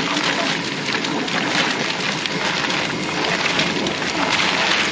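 Live crawfish being poured from a plastic basket into a pot of boiling water: a dense, steady rattling patter of shells tumbling and splashing in.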